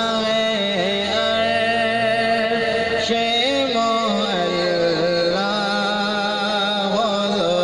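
A man singing a naat, an Islamic devotional poem in praise of the Prophet, solo and unaccompanied into a microphone, in long held notes with ornamented, gliding turns between them.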